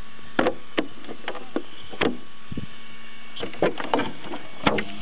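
Irregular sharp clicks and knocks, about a dozen, some in quick pairs, over a steady low hiss.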